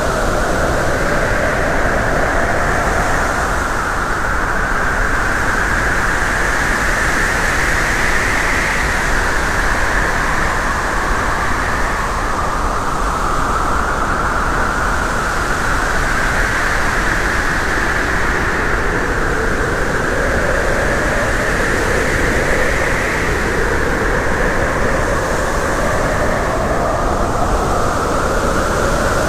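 Steady road and wind noise of a vehicle on the move: a continuous rush with hollow bands that slowly sweep up and down.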